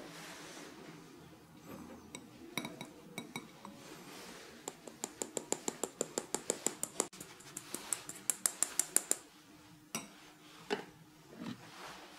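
Powdered sugar being sifted through a hand-held fine-mesh sieve, tapped quickly and lightly at about six taps a second for several seconds. A few scattered clinks come before the tapping, and a couple of knocks come after it.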